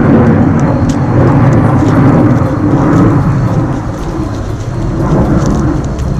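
Loud wind buffeting the camera microphone: a steady, dense low rumble, with a few faint clicks of handling over it.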